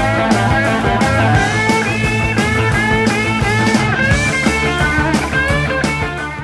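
Rock music with a steady drum beat and a moving melody line, getting a little quieter near the end.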